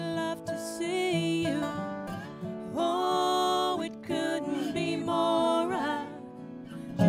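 A slow country-style ballad played live: a woman's lead vocal over acoustic guitar, sung in long held phrases.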